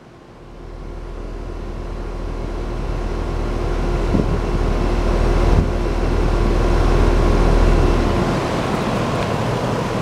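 Sure Comfort outdoor air-conditioner condenser unit running with a steady mechanical hum and a low rumble. It grows louder over the first several seconds.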